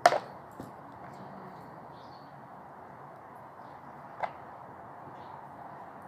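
Kitchen knife chopping into a raw chicken: a sharp chop right at the start with a smaller knock just after, and a second, lighter chop about four seconds in.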